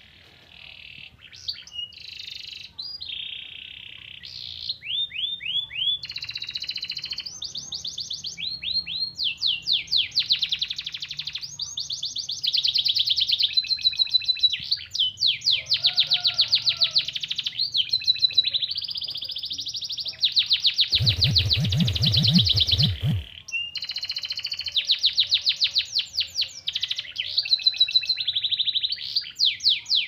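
Domestic canary singing a long, unbroken song of fast trills and rolling repeated notes, carrying phrases learned from the Oriental white-eye (pleci). A brief burst of noise cuts across it for about two seconds roughly two-thirds of the way through.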